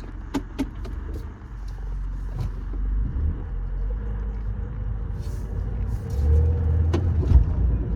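2019 Toyota Corolla 2.0 backing up, a steady low rumble from the car that swells near the end, with a few short knocks. In reverse the grinding noise is faint or gone, as the driver says of reverse; it comes back when the car drives forward.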